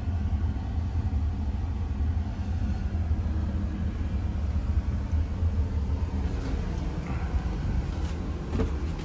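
Chevrolet 6.0-litre Vortec V8 idling, heard from inside the cab as a steady low rumble.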